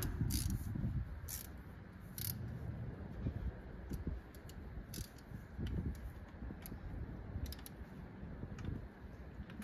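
Scattered light clicks and clinks of hand tools and parts being handled, a few sharp clicks about a second apart in the first couple of seconds, then fainter ones, over low handling knocks.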